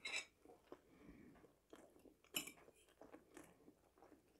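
Quiet close-up chewing and mouth sounds of a person eating marinated herring and boiled potato, with two sharp clicks, one right at the start and one a little past halfway.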